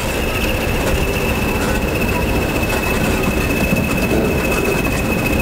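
Pair of Class 20 diesel locomotives passing slowly close by, their English Electric V8 diesel engines running with a steady low rumble and a constant high whine.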